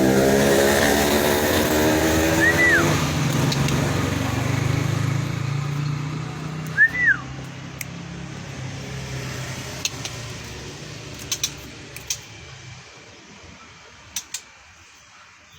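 A motor vehicle engine running and fading away over about twelve seconds, the loudest sound. Over it, a shama gives two short, arched whistled notes, about 2.5 and 7 seconds in. A few sharp clicks follow later.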